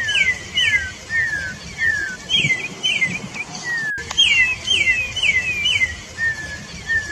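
Campo troupial (corrupião) singing: clear whistled notes that slide down in pitch, repeated in quick runs of several notes. A sharp click comes about four seconds in.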